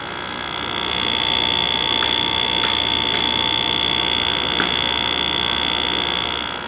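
A Sharp 5000 BTU window air conditioner running with its Rechi compressor on: a steady hum under a constant high-pitched whine, louder through the middle. The compressor is not the quietest but doesn't sound bad, a unit in working order.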